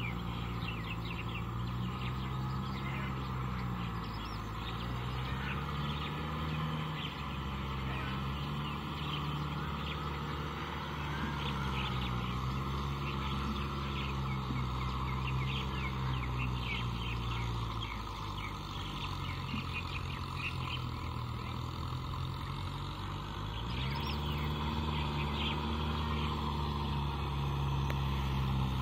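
Distant tractor engine running under load as it pulls a rotavator through a flooded rice paddy, its note sagging and picking up again twice. Many small birds chirp over it the whole time.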